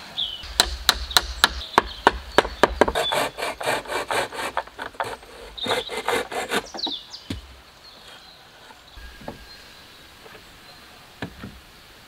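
Hand saw cutting through wood in quick, even strokes, about three a second, stopping about seven seconds in; a few light knocks of wood follow.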